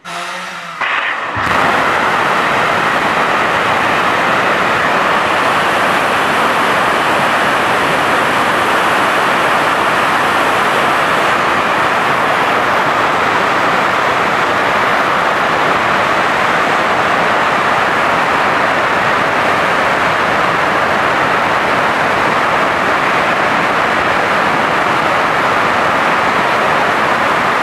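RD-0124MS four-chamber kerosene–liquid-oxygen rocket engine in a hot-fire test. It lights about a second in, comes up to full level within half a second or so, and then runs as a loud, steady rushing noise.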